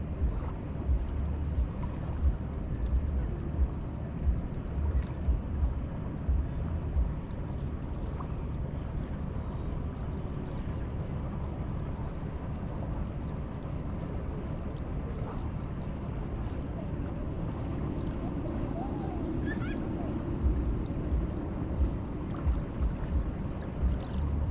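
Neva river water lapping and splashing, with wind buffeting the microphone in gusts, heaviest in the first few seconds and again near the end.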